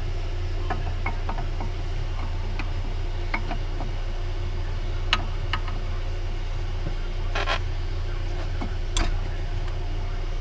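Scattered light metallic clicks, with a short scrape about seven and a half seconds in and a sharp click near nine seconds, from brake pads being handled and slid into a disc brake caliper, over a steady low hum.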